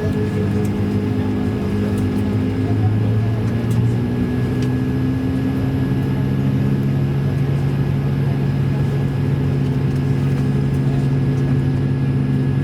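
Airbus A220-300 cabin drone from its Pratt & Whitney PW1500G geared turbofans: a loud, steady hum of several low tones with a thin high whine above it. Some of the low tones shift in pitch during the first few seconds, then hold steady.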